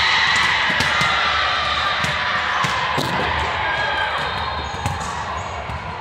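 Volleyball play in a large, echoing gym: several sharp smacks of the ball being hit and bouncing on the hardwood floor, over a steady hubbub of many voices.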